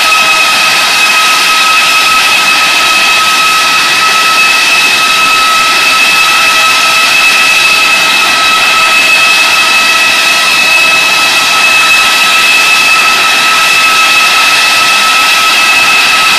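Rolls-Royce RB211-524GT turbofan on a Boeing 747-400 running on a ground engine run at a steady power setting: a loud, even rush of air with a steady two-note whine over it, neither rising nor falling.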